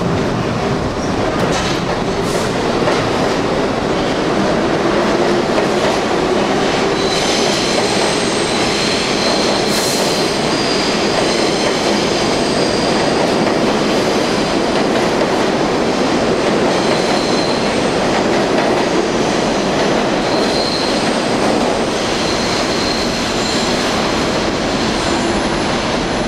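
Budd-built R32 subway train pulling out of an underground station, its cars running steadily past on the rails. A thin high wheel squeal comes and goes from about a quarter of the way in.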